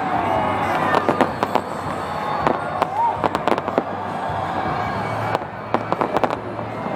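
Fireworks display going off: a rapid, irregular series of sharp bangs and crackles, loud throughout.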